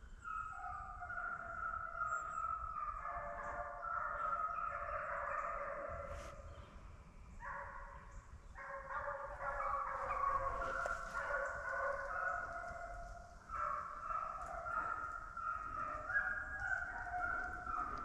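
A pack of deer hounds baying as they run a deer, several dogs giving long, overlapping howls at different pitches. The chorus eases off briefly twice.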